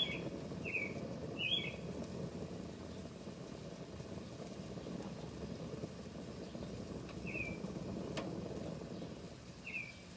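A small bird chirping a short, repeated call, three times in the first second and a half and again twice later, over a steady low rumble of outdoor background noise. There is a single light click about eight seconds in.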